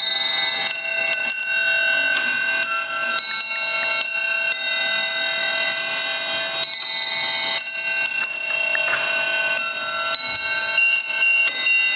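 Ornate gilt musical clock chiming a tune on its small bells: high notes struck one after another, each ringing on under the next.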